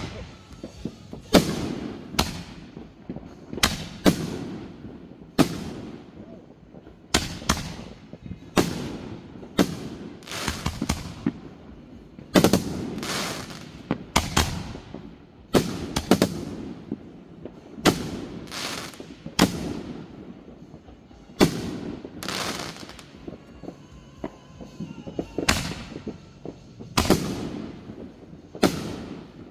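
Firework shells fired in rapid succession from a homemade 50-shot rack: a long, irregular string of sharp bangs, roughly one a second, each trailing off in a rumble.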